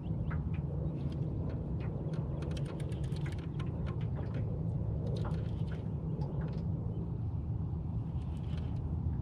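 Steady low rumble of wind on the microphone, with scattered, irregular light clicks and ticks as a fishing reel is cranked against a hard-bent rod.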